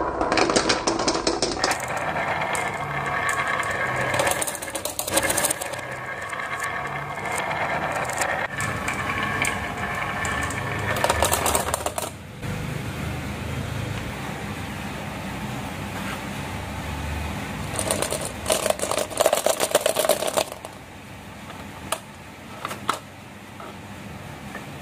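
Marbles and small toy vehicles rolling and clattering down a marble-run track and ramp: rapid clicks and rattles over a steady rolling hum, busiest for the first dozen seconds, calmer in the middle, with another dense burst of clicking past the halfway point.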